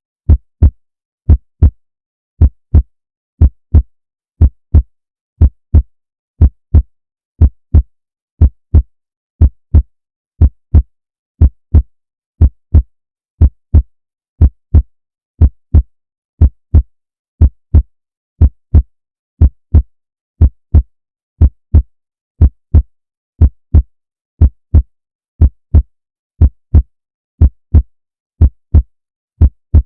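A heartbeat: an even lub-dub rhythm of two dull thumps close together, repeating about once a second, around 60 beats a minute.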